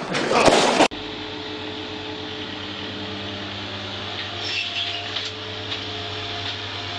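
A loud, rough scuffling noise for about the first second, which cuts off abruptly. Then a ride-on reel mower's engine runs steadily with a low hum, with a few light knocks and rattles around the middle.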